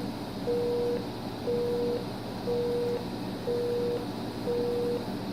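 Telephone busy-signal tone over a cordless phone's speakerphone after the voicemail system has hung up: a steady mid-pitched beep, half a second on and half a second off, about once a second, over a faint line hum.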